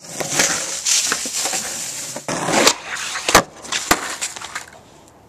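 Skateboard wheels rolling on rough asphalt, with a gritty hiss and small clicks, then two sharp clacks of the board striking the pavement about half a second apart, a little past halfway. The rolling dies away near the end.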